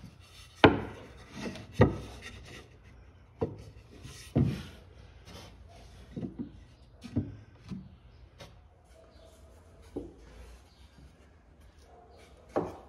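A wooden strip knocking and scraping against the fiberglassed inside of a dinghy hull and a wooden template as it is fitted into place: about nine sharp, irregular knocks with rubbing between them, the loudest under a second in and another strong one near the end.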